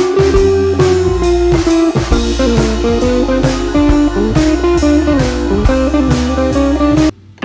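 Background music: guitar over a drum kit with a steady beat. It stops abruptly near the end.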